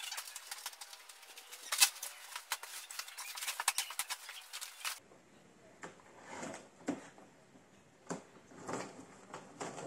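Packaging being handled and opened: dense crackling and rustling with sharp clicks for about five seconds. After an abrupt change, a quieter stretch follows with a few soft, scattered sounds.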